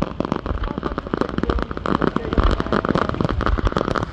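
Fireworks going off: a dense, rapid crackle of pops, with several deep booms mixed in.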